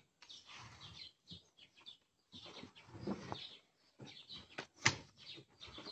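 Cardboard boxes of tiles being lifted and shifted on a pickup truck's bed, with scuffs and knocks; the sharpest knock comes about five seconds in.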